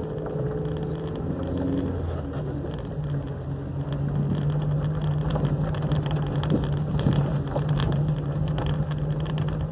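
Car engine running at a steady low hum while driving over a rough dirt road, heard from inside the cabin, with tyres crackling over loose dirt and small knocks from the bumpy surface.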